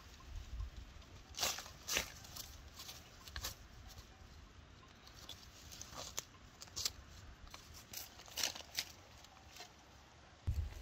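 Wild herb sprigs being snapped and pulled from grass among dry fallen leaves: a string of irregular sharp snaps and crackles, a few of them louder, over a faint low rumble.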